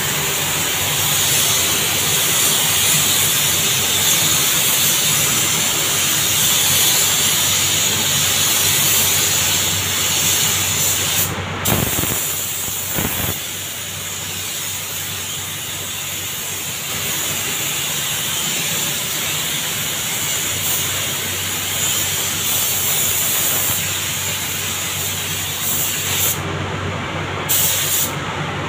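Air-powered paint spray gun hissing steadily as it sprays paint onto car body panels. The hiss cuts out briefly about eleven seconds in and twice near the end, over a steady low hum.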